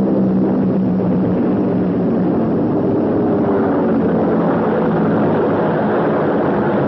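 Piston aircraft engines droning steadily, their pitch sliding slightly lower partway through.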